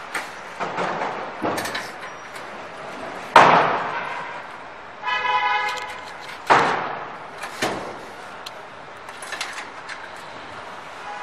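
Metal knocks and clanks from an electric motor being handled and fitted against a steel machine frame, loudest about three and a half seconds in. A brief horn toot sounds about five seconds in.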